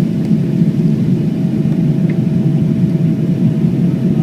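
Boeing 777-300ER jet running, heard as a steady low noise from its GE90-115B engines and the airflow, with a faint steady tone held above it.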